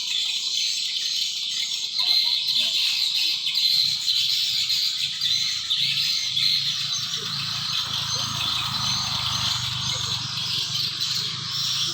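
Dense outdoor chorus of birds chirping and calling, high-pitched and continuous. A low rushing noise joins about seven seconds in.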